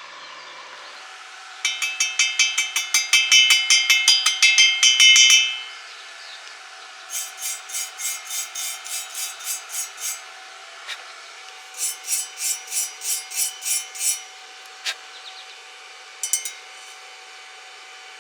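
A hammer rapidly striking steel, about five blows a second with a ringing metallic tone. The blows come in three runs of a few seconds each, the first the loudest, and a short burst near the end, over a steady faint hum.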